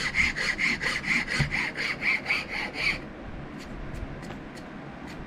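A hand file rasping over a wooden knife handle in quick, even back-and-forth strokes, about four a second, shaping and smoothing the grip. The filing stops abruptly about three seconds in, leaving a few faint light ticks.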